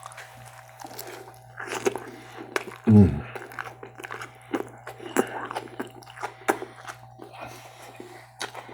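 A person chewing and biting food close to the microphone, with irregular wet mouth clicks and crackles, and a short hum of the voice about three seconds in.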